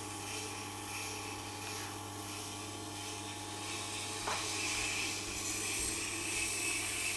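Tormek sharpening machine running with a steady low motor hum while a serrated knife edge is drawn along the turning wheel, giving a soft grinding hiss that grows louder in the second half, with a single small click a little over four seconds in.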